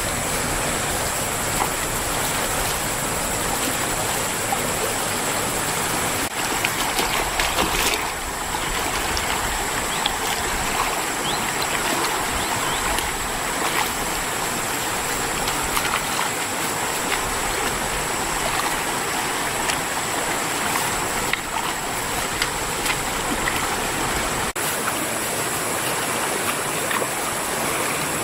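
A swollen, fast-flowing river rushing steadily: a continuous broad rush of moving water.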